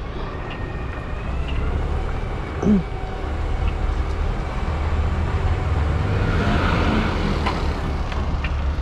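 Semi-truck's diesel engine running low and steady during slow manoeuvring with a small trailer, with a short falling tone about three seconds in and a brief hiss near seven seconds in.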